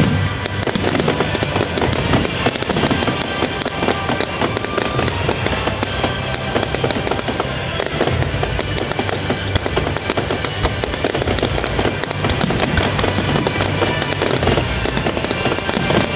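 Fireworks display: a continuous dense crackling and popping of bursting shells and crackle stars, with music playing alongside.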